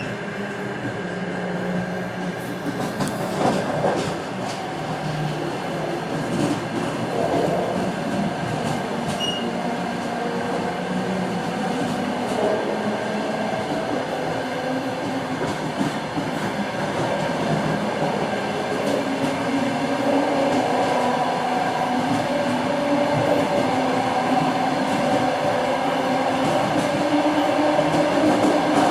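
Moving train heard from on board: the wheelsets knock over rail joints under a steady howl with several drifting tones, growing slowly louder.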